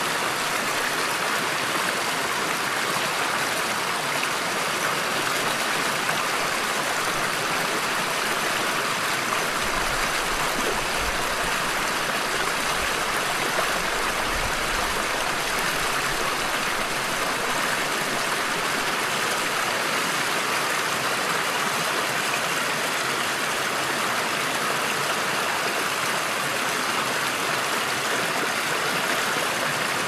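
Mountain stream running steadily over rocks: an even rushing hiss of water, with a faint low rumble for a few seconds near the middle.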